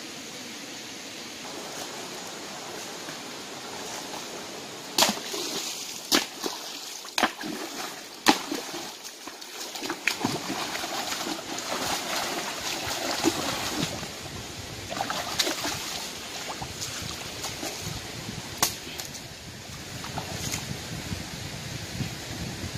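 Shallow stream water with hands splashing and sloshing in it as rocks are moved, broken by several sharp knocks, four of them between about five and eight and a half seconds in and another near the end.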